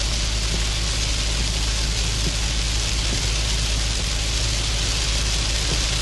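Heavy rain falling in a steady hiss over a constant low rumble.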